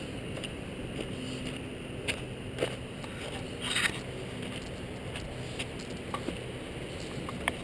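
Steady rushing noise on a GoPro's microphone as it is carried along, with scattered clicks and a brief scrape just under four seconds in.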